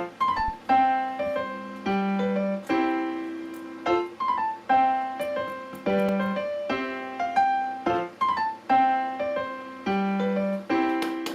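Background piano music: a melody of struck notes that ring and fade, in a phrase that repeats about every four seconds.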